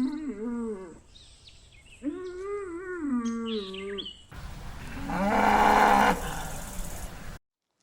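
Animal calls: two drawn-out calls that fall in pitch, then a louder, rougher call about four seconds in that cuts off abruptly.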